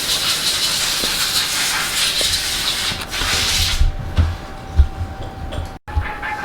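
Metalworking shop machinery giving a harsh, steady hissing grind, like metal being ground or cut, which stops about four seconds in. Low thuds follow.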